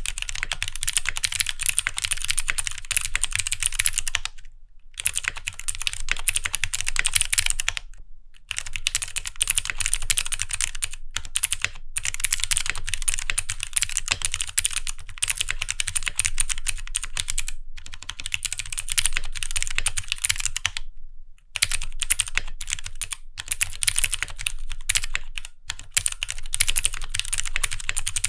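Rapid typing on a Keychron Q1 mechanical keyboard fitted with 82 different switch types mixed together (linear, tactile and clicky) under clear ABS keycaps, so neighbouring keys click and clack unevenly. The keystrokes come in dense runs broken by short pauses every few seconds.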